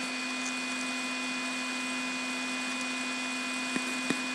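Steady machine hum and hiss with a constant low tone, like a small motor or fan running. Two faint clicks come near the end.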